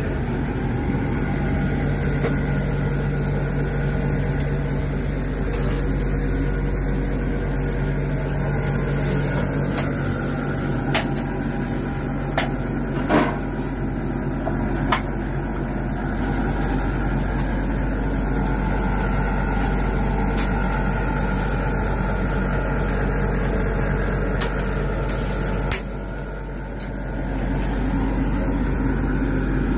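Burger patties sizzling on a charcoal grill over a steady mechanical hum, with a few sharp metal clicks of cooking utensils around the middle.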